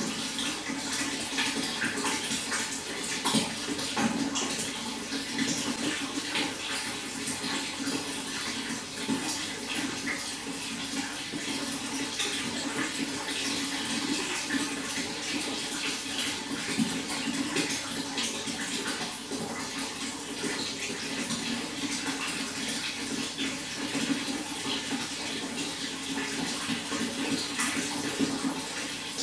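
Running water flowing steadily: a continuous rush dense with small splashes and trickles.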